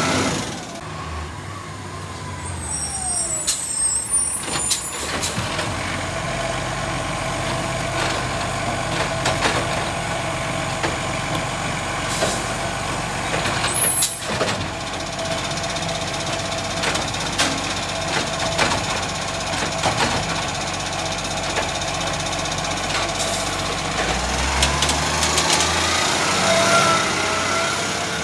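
Iveco Acco side-loader garbage truck's diesel engine running, with a steady whine over it and a few sharp knocks; near the end the revs rise as the truck pulls away.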